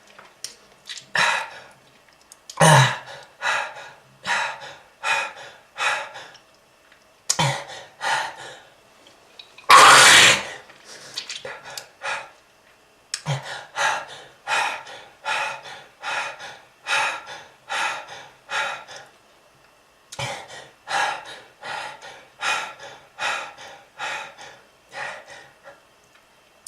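A smoker's cough: a person coughing hard in repeated fits of short, sharp coughs, two or three a second, with brief pauses for breath. About ten seconds in comes one long, loud, harsh hacking burst. It is the cough of lung disease, with blood brought up.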